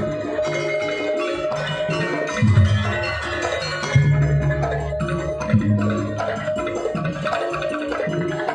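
Gamelan music accompanying a dance: interlocking metallophone tones over deep drum or gong strokes that come every second and a half or so.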